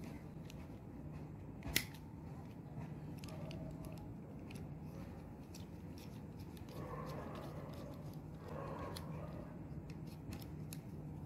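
Light clicks and scrapes of a screwdriver working on a plastic magnetic contactor and its metal contact parts, with one sharper click about two seconds in, over a steady low hum.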